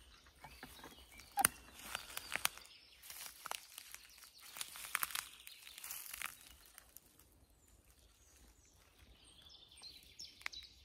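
Crackling and rustling of dry leaves and twigs underfoot in forest undergrowth, with one sharp crack about a second and a half in. Near the end a small bird chirps, a series of short high notes.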